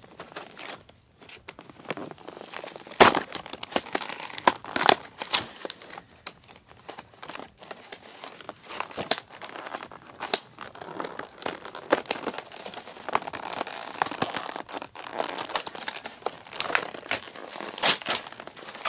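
Plastic toy packaging being opened by hand: steady crinkling and rustling of the plastic blister pack and bag, with sharp crackles and rips, the loudest about three seconds in and again near the end.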